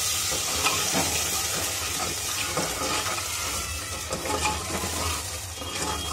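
Masala paste frying in hot ghee in an aluminium pressure cooker: a steady sizzle, with a metal ladle stirring and scraping against the pan now and then.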